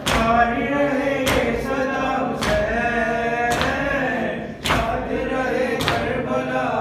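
Male voice chanting a Shia mourning lament (noha) through a microphone, with a sharp chest-beat (matam) strike landing in an even rhythm about once a second.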